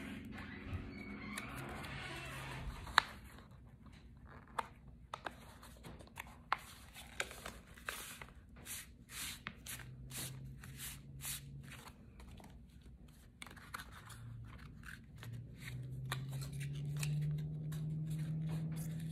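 Cardstock pieces being handled and pressed into place: a run of short clicks, taps and paper rustles, with a sharp tap about three seconds in.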